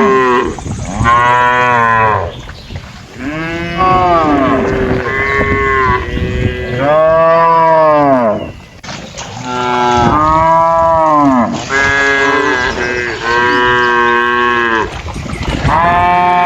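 Cattle mooing again and again, one long call after another with some overlapping; each call rises and then falls in pitch.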